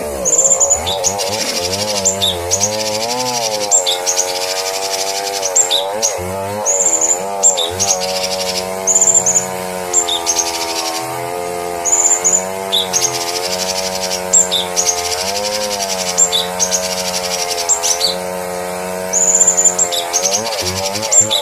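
Cucak cungkok birdsong from a master recording for teaching caged songbirds: short, high chirps come in quick clusters about every second. Beneath them runs a steady, wavering lower tone.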